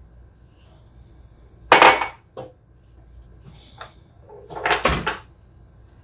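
Two brief clattering knocks of kitchen things being handled on a granite countertop, about three seconds apart. The first, about two seconds in, is the louder and sharper; the second is longer and rougher.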